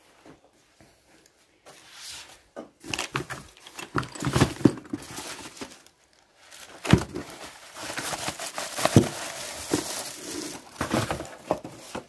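Crinkling and rustling of packaging handled by hand, with irregular knocks and clicks, starting about two seconds in.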